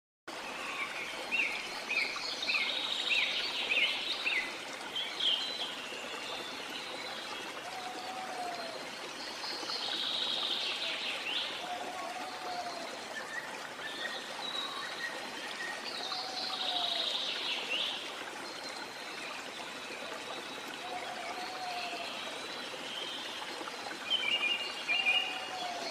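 Birds chirping over a steady sound of running water, with a quick run of chirps in the first few seconds and a short lower call repeating about every four seconds.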